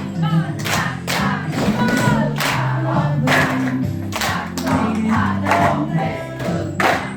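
A pop song with backing vocals playing, and cups struck in a steady rhythm to it, about two sharp taps a second.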